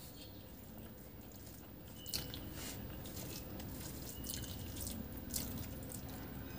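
Wet squishing of fingers working through rice mixed with dal and fish curry on a plastic plate, with a few sharp wet smacks about two, four and five seconds in.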